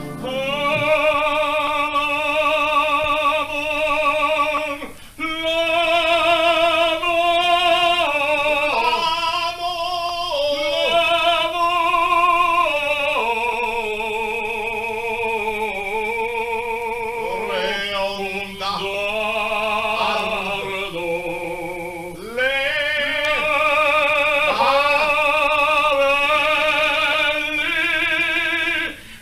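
Operatic voice singing long sustained phrases with a wide vibrato, pausing briefly for breath a few times. It is an old, narrow-band recording, thin and lacking highs.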